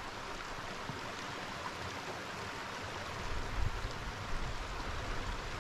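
Steady rushing of running water, like a rainforest creek, with some low rumbling bumps in the second half.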